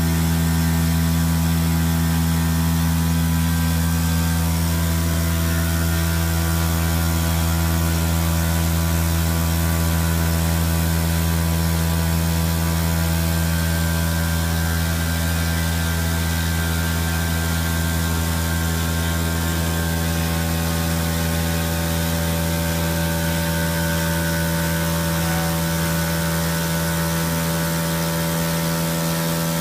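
Spindle of a 2004 Intermac Pro CNC stone centre running as its tool works around a cutout in a stone slab: a loud, steady machine hum with several held tones.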